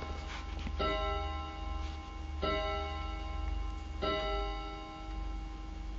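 A clock striking, three evenly spaced chimes about every 1.6 seconds, each a ringing tone that fades slowly until the next, over a low hum.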